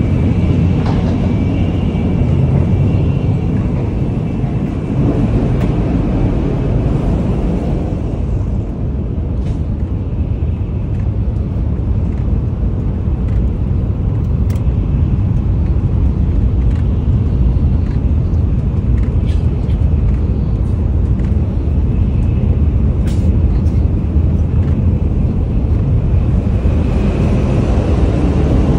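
Shinkansen bullet train running at speed, heard from inside the cars: a loud, steady low rumble and rush, with a faint high whine in the first few seconds and again near the end, and a few light clicks.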